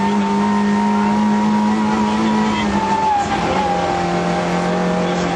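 Rally car's engine at high revs, heard from inside the cabin, holding a steady note; about three seconds in the pitch drops a little and then holds again.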